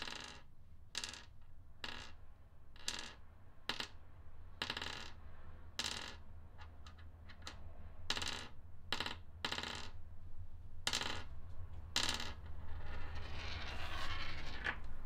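Small metal objects, pistol cartridges, set down one at a time on a wooden tabletop: a dozen or more sharp metallic clicks, each with a brief ring, about one a second at uneven intervals, over a steady low hum. A rustling scrape comes in near the end.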